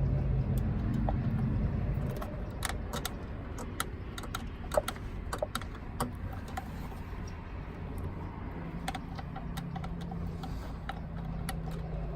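Scattered small plastic clicks and rattles of fingers working at a brake controller's wiring connector under a dashboard, trying to free its stiff release catch. A low steady hum runs underneath, stronger in the first two seconds.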